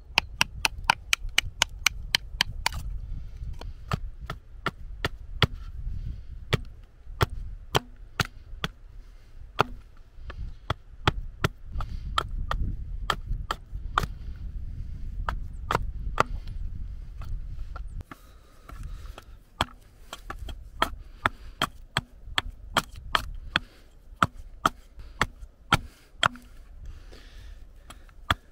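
A knife batoned and a small hatchet chopping into a stick of green European hornbeam laid on a wooden board: a long series of sharp wooden knocks, rapid for the first few seconds and then more spaced out, over a low rumble.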